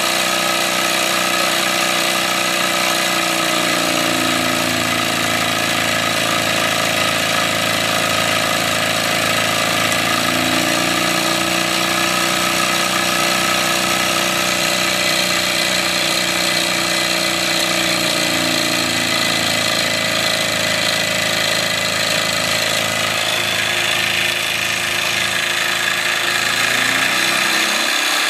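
Wilesco D24 model steam engine running steadily, belt-driving a small stepper-motor generator. It makes a fast, even mechanical clatter under a layered whine, and some of the tones drift slowly up and down in pitch as the speed changes.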